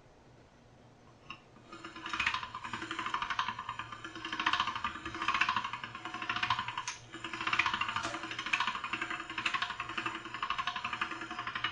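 Hand-cranked all-metal pasta machine turning, its cutting head's gears giving a fast, dense rattling whir that swells about once a second as a sheet of dough is cut into tagliatelle. It starts about two seconds in.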